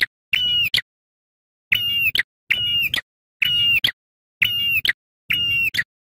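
Ashy tailorbird call: six short, loud notes spaced about a second apart, each a steady high whistle that ends in a quick flick. The notes are cut clean with complete silence between them, as in an edited, looped recording.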